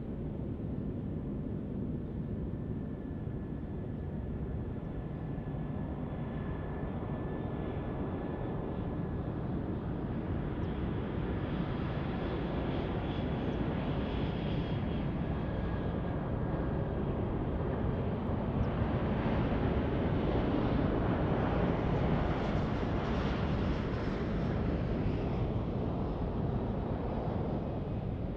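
Airbus A340-300 on landing approach, its four CFM56-5C turbofans giving a broad steady jet rumble with a faint high whine. The sound grows gradually louder as the aircraft nears, loudest about two-thirds of the way through.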